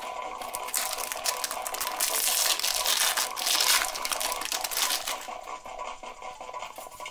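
Foil trading-card booster pack crinkling and tearing as it is ripped open by hand, loudest in the middle and dying down about five seconds in.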